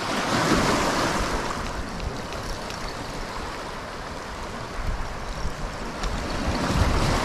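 Sea waves washing onto the shore, with one surge about half a second in and another near the end, and wind on the microphone.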